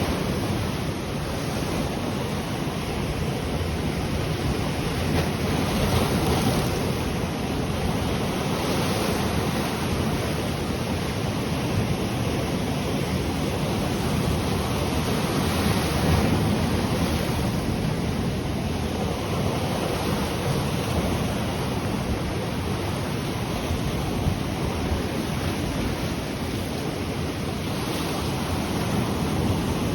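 Ocean waves breaking and washing on the shore in a steady wash of surf that swells and eases every several seconds, with some wind on the microphone.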